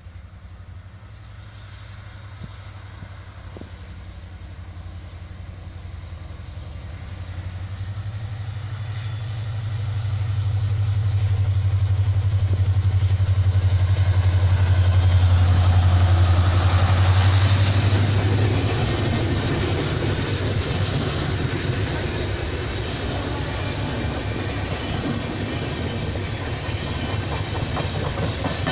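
EMD WDP4D diesel locomotive's 16-cylinder two-stroke engine drones low as it approaches and passes under power, smoking, growing louder to a peak a little past halfway. Its passenger coaches then roll past with a steady rush of wheels on rails.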